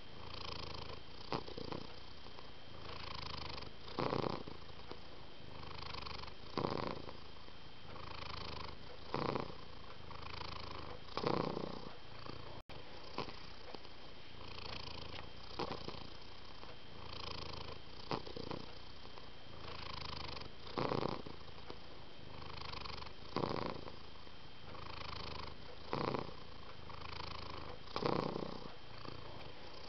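Domestic cat purring close up: a steady purr that swells louder with each breath, roughly every two and a half seconds, with a momentary break near the middle.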